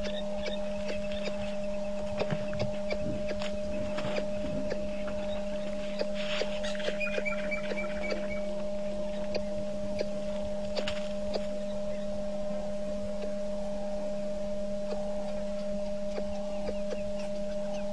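Steady hum in two low tones, with scattered faint clicks and a short burst of high bird chirps about six to eight seconds in.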